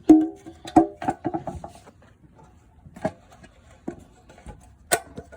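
Clanks and knocks of a hollow steel motorcycle fuel tank being handled, each hit ringing briefly. The loudest clanks come near the start and about a second in, followed by a quick run of lighter knocks, with a few more single knocks later.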